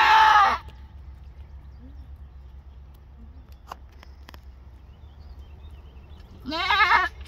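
A Boer–pygmy mix doe in labour with her first kid bleats loudly twice, once at the start and again about six and a half seconds in, the second call with a quavering pitch; she is straining as the kid's legs are pulled out by hand. A few faint clicks come between the calls.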